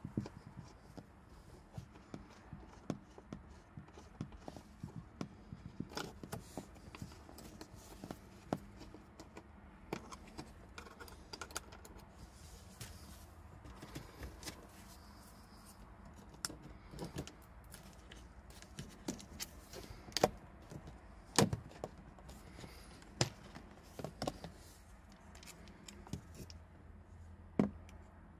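Irregular small plastic clicks, taps and scrapes as a screwdriver pries the dashboard speaker grille of a Mercedes W124 loose and the grille is lifted out. A few louder knocks come in the second half.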